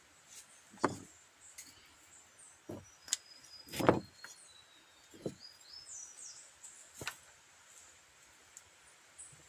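A handful of irregular knocks and thuds, the loudest about four seconds in, with faint high bird chirps in the middle.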